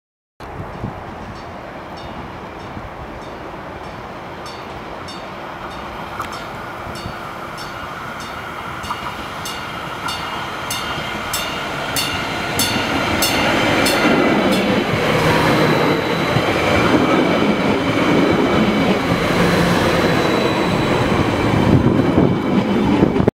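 Stadler GTW diesel-electric railcar approaching and then passing close by, growing steadily louder, loudest as it goes past over the last several seconds. A regular run of sharp clicks, about two a second, sounds during the approach.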